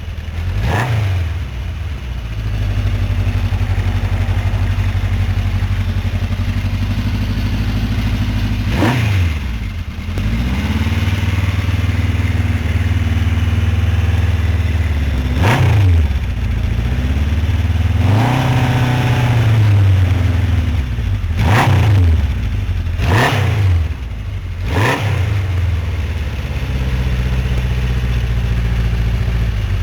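Honda CB750 K0's air-cooled inline-four engine idling with its throttle blipped about six times, the revs jumping up and dropping straight back, plus two slower, longer revs that rise and fall more gradually.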